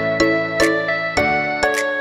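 Background music: a light melody of struck, ringing notes, about two notes a second.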